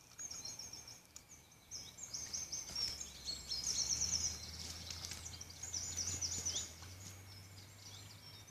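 Small songbirds singing: a string of rapid, high-pitched trilled phrases, repeated again and again.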